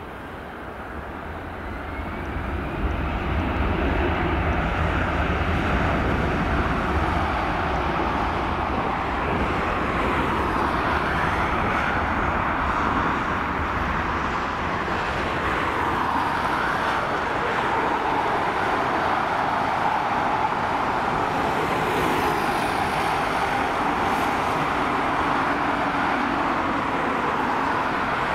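Airbus A320-214's two CFM56-5B turbofan engines spooling up to takeoff thrust, with a rising whine over the first few seconds, then a steady loud engine noise with a low rumble through the takeoff roll.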